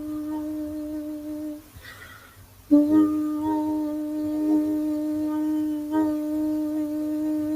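A voice humming one long held note in sound-healing toning. It breaks off about a second and a half in for an audible breath, then takes up the same note again about a second later.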